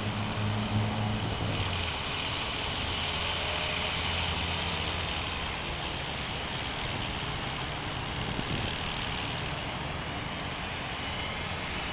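E-sky Belt CP electric radio-controlled helicopter in flight: a steady motor and rotor whine over a noisy hiss, with a low hum in the first few seconds.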